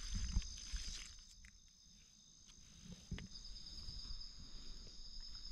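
Insects trilling steadily in several high pitches, a pulsing trill joining about halfway through, over a few faint clicks and rustles of hands handling mushrooms.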